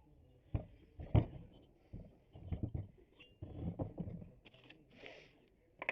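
Handling noise: a run of irregular knocks, clatters and scrapes of objects being picked up and moved, the sharpest about a second in.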